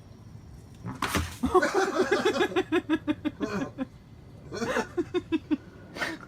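A thump, then a person laughing in quick, rapid bursts, with a second shorter laugh a little later.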